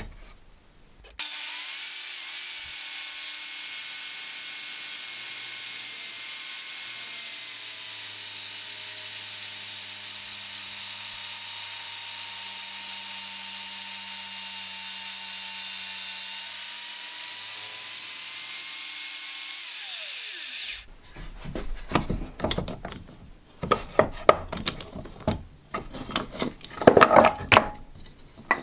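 A drill press runs steadily for about twenty seconds, boring a hole into the end of an oak handle blank. Its motor pitch sags slightly in the middle as the bit cuts, and then it stops abruptly. Irregular wooden scraping and knocking follow as the block is handled and the shavings are brushed away.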